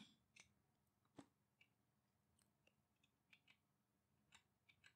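Near silence: room tone with a few faint, scattered computer keyboard keystrokes.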